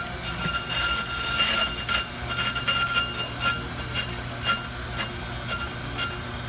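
On-car brake lathe running, spinning the hub and brake rotor with a steady motor hum while its cutting tips barely touch the rotor, giving a thin, steady metallic ringing and light clinks about twice a second as the tool is run in.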